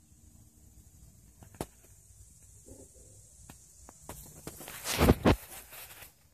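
Handling noise from a phone being moved around: a sharp click about one and a half seconds in and a few lighter ticks, then a loud rustling and rubbing on the microphone, loudest about five seconds in.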